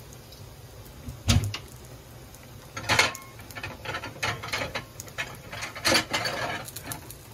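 Kitchen crockery and utensils clattering as a bowl is fetched. There is a dull knock about a second in, then a run of clinks and clicks from about three seconds on.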